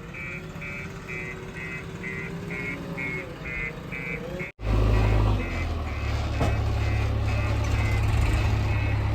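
A reversing alarm beeping steadily, about two and a half beeps a second, over a diesel engine running. The sound breaks off for an instant about halfway through, and after it the engine's low rumble is much louder under the beeps.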